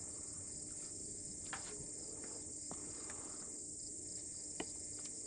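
Steady high-pitched chorus of insects such as crickets, with a few faint clicks.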